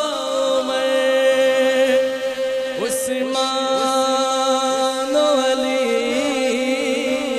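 A man singing an unaccompanied devotional Urdu nazm (manqabat) into a hand-held microphone, drawing out one long sung note with a slight waver that shifts pitch about five seconds in.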